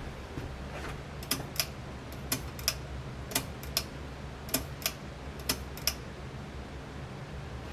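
Casablanca Panama ceiling fan with an XTR 200 motor running, a low steady hum with a regular ticking over it: pairs of sharp clicks repeating about once a second for several seconds.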